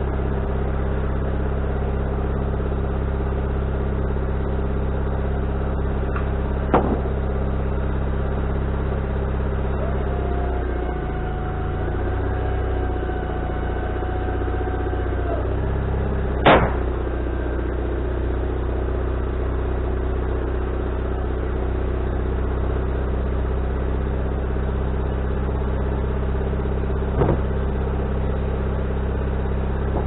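Wood-Mizer LT40HD sawmill's engine running steadily. For a few seconds in the middle its pitch dips and then comes back up. Three sharp knocks cut through it, about seven seconds in, about sixteen seconds in and near the end, the middle one the loudest.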